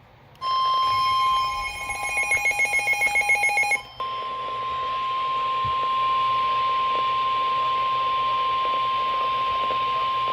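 NOAA Weather Radio warning alarm tone: a steady, loud single-pitch tone near 1 kHz, the signal that comes before a severe thunderstorm warning broadcast. A brief dropout comes just before it. For its first few seconds, a rapidly pulsing electronic buzz overlaps the tone. From about four seconds in, the tone sounds alone.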